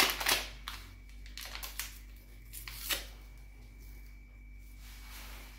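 A few short rustling and scraping sounds in the first three seconds, then faint room noise, as a paper sachet of baking powder is handled on the table.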